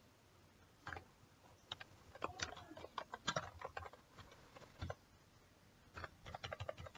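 Faint computer keyboard typing: irregular keystrokes in short runs.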